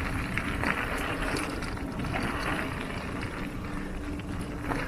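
Mountain bike rolling over a dirt trail, with wind rumbling on the microphone and small clicks and rattles from the bike.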